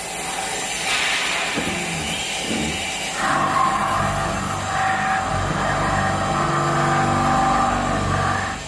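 VMC650 vertical machining centre milling a metal block with an end mill: the spindle running with a steady cutting whine and screech, louder from about three seconds in, its tones shifting a few times as the cut changes.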